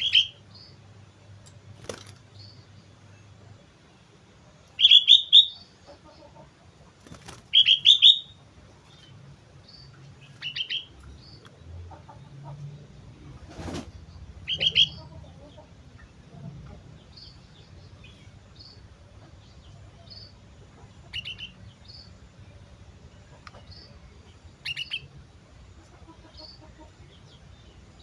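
Sooty-headed bulbul (kutilang) calling in short, bright chirping phrases every few seconds, with faint higher notes in between. Three sharp ticks stand out among the calls.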